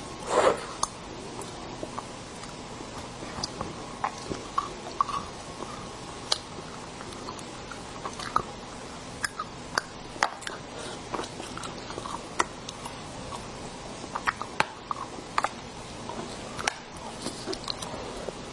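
Close-miked eating of a soft chocolate cake: chewing and wet mouth smacks with scattered soft clicks, one louder mouth sound about half a second in.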